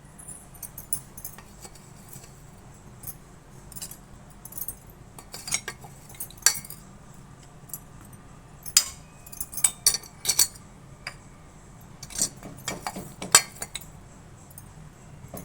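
Kitchen utensils clinking and tapping against one another: scattered sharp clinks, sparse at first and more frequent from about five seconds in, over a steady low hum.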